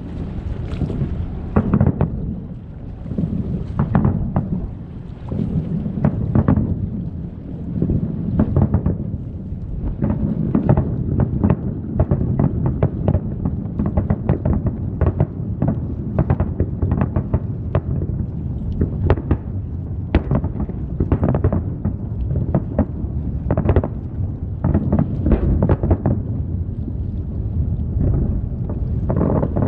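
Aerial firework shells bursting in the distance: a long run of booms and bangs that rumble like thunder over a continuous low rumble. The bursts come in quicker succession from about ten seconds in.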